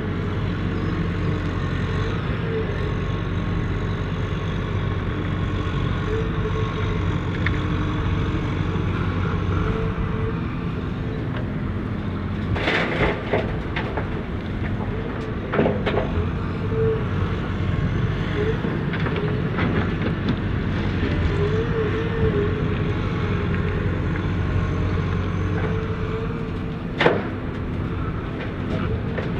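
Volvo EW140C wheel excavator's diesel engine running steadily under hydraulic load, with a wavering whine as the boom and bucket move. A clatter of soil and rocks dropping into the trailer bed comes about halfway through, and a sharp knock near the end.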